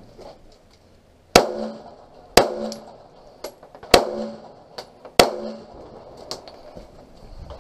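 Four loud pistol shots about a second apart, each followed by a short ringing tail, with fainter sharp cracks falling between them.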